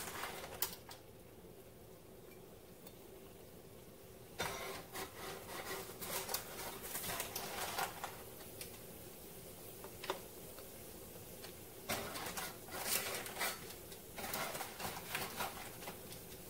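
Yeast-dough donut rings frying in hot oil in a pan. The oil sizzles and crackles, in louder spells about four seconds in and again near twelve seconds, as more dough rings are lowered in.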